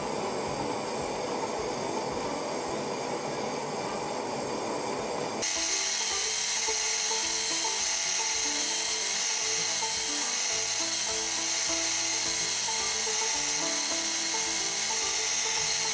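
A gas forge burner runs with a steady rushing hiss. About five seconds in, this cuts to a belt grinder running with a bright, steady hiss as a knife blade is ground on a fine resurfacing belt, with background music under it.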